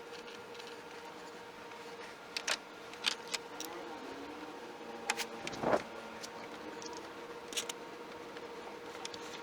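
2001 Acura MDX running with a steady hum, broken by a handful of sharp, irregularly spaced clicks; the engine has a misfire.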